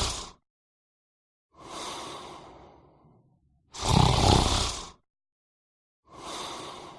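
A person snoring in a slow, regular breathing rhythm. A loud, rough snore ends just after the start and another comes about four seconds in, each followed by a softer breath that fades away, roughly one breath every four and a half seconds.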